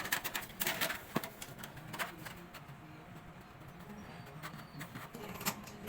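Sharp clicks and knocks of computer parts being handled and fitted, several in the first second, another about two seconds in and one near the end.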